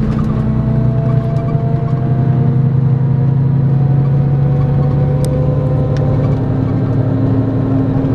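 Scania K410EB6 coach's six-cylinder diesel engine pulling under load, heard from on board, its pitch rising slowly as the coach gathers speed.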